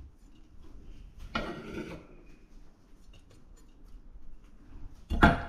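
Kitchen food-prep handling: light clinks and taps of utensils, with a brief scraping, rustling sound about a second and a half in and a short louder knock near the end.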